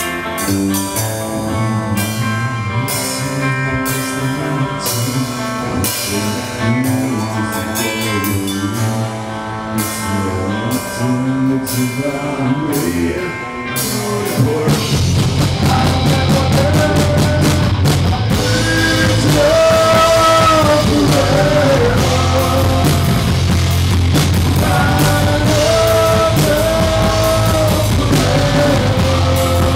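Live rock band of electric guitars, bass and drum kit playing, with regular drum and cymbal strokes about twice a second. About fifteen seconds in the full band comes in louder and heavier, with long held melody notes over it.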